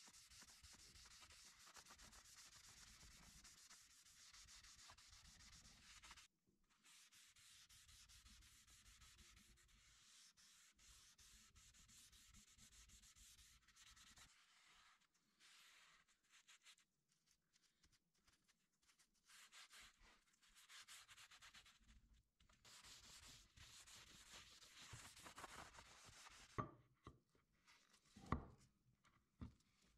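Faint strokes of a cloth rag rubbed over an MDF board, wiping on finish, coming in stretches with short pauses. Near the end come a few light knocks as a metal diamond sharpening plate is set into its pocket in the board. The loudest knock falls about two seconds before the end.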